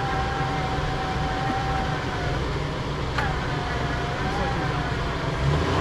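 Electric winch motor whining steadily as it pulls under load, over the low rumble of an idling engine, with a couple of sharp clicks.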